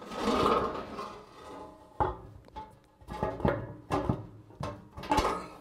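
Cover of a manure vacuum's main suction screen housing being handled and fitted back onto the housing: a scraping rub at first, then a series of sharp knocks as it is seated.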